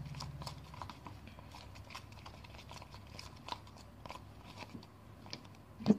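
Soap and water being stirred into foam in a glass jar: faint, irregular small clicks and squelches, with a louder knock near the end.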